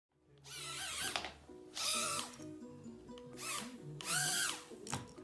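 A small toy quadcopter's motors whining in four short bursts, each rising then falling in pitch as the propellers spin up and slow down.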